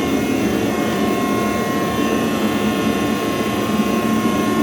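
Propane gas forge burner running with a steady, even rushing noise, with a faint steady whine coming in about a second in.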